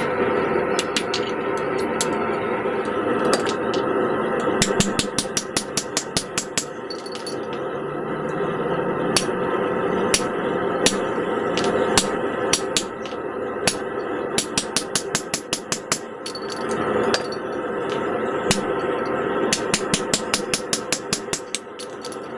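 Hammer blows on hot steel at the anvil, coming in quick runs of several strikes a second with short pauses between runs, over a steady background.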